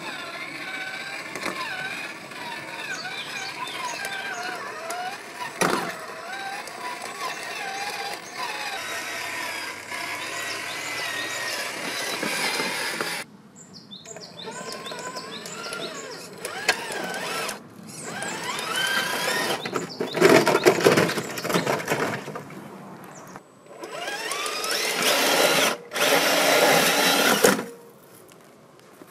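Electric motor and geartrain whine of a Traction Hobby KM5 1/8-scale RC crawler, rising and falling in pitch with the throttle as it climbs over rock. It stops briefly a few times and comes in louder in two stretches in the second half.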